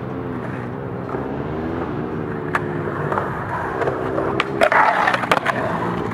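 Skateboard wheels rolling on concrete with a steady, wavering rumble. About four and a half seconds in comes a quick cluster of sharp clacks with a short scrape among them, from the board striking the ramp.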